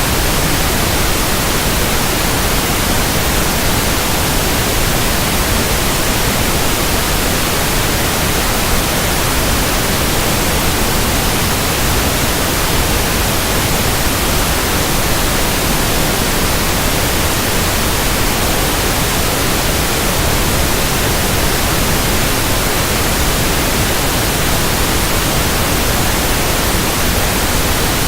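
Pink noise test signal: a steady, even hiss spread across the whole range of pitch, holding one level throughout.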